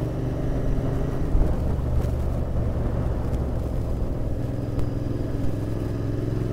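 Royal Enfield Interceptor 650's parallel-twin engine running steadily at a cruise, heard from the rider's position along with a constant rush of wind and road noise.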